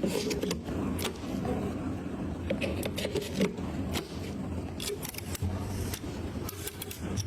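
Irregular sharp clicks and short scrapes of hard parts being handled, as in PC components being fitted together, over a low steady hum.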